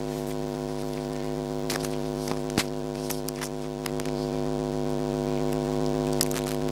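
Steady electrical buzz from an audio cable and plug, with scattered sharp clicks as the plug and cable are handled. The buzz grows slightly louder about four seconds in.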